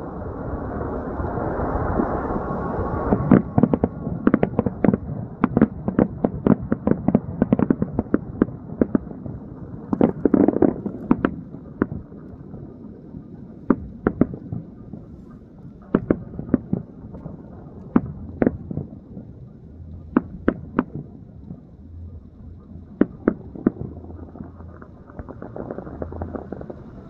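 A long series of sharp explosive bangs. A swell of noise builds over the first few seconds, then comes a dense rapid run of cracks, thinning to single bangs every second or two near the end.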